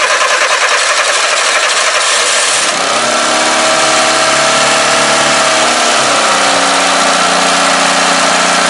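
Peugeot 205 engine starting up: a loud, rough burst of noise as it catches, then a fast idle that rises and falls before settling into a steady idle about six seconds in. With its newly fitted water pump and timing belt, it runs without any fault noise.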